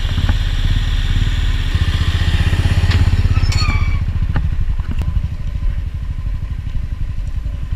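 Royal Enfield 350's single-cylinder engine thumping steadily at low speed, the bike rattling and clattering over a rocky gravel track with a few sharp knocks; after about four seconds the rattle and hiss fall away while the engine thump continues.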